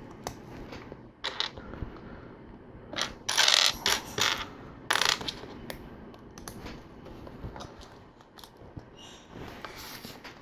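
LEGO plastic pieces clicking and clattering as tiles are pressed on and parts are handled. A louder rattle of pieces comes about three seconds in, and a sharp click comes near five seconds.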